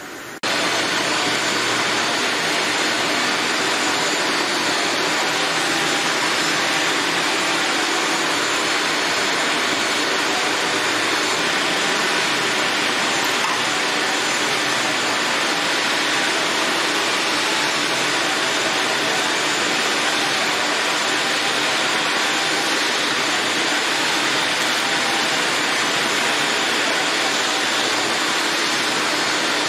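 Steady, loud rushing noise of a running air-moving machine, cutting in abruptly about half a second in and holding unchanged.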